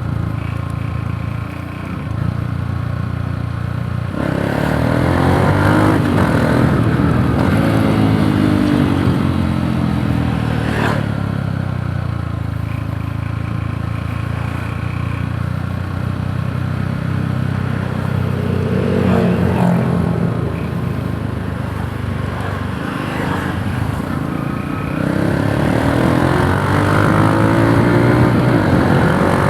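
Yamaha YTX125 cafe racer's single-cylinder four-stroke engine running on the road. It revs up about four seconds in, runs at a steadier pitch through the middle, and revs up again near the end.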